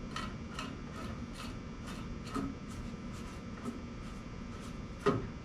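Quick, evenly repeated scraping strokes, about three a second, like something being rubbed or scrubbed by hand, with a sharp knock near the end.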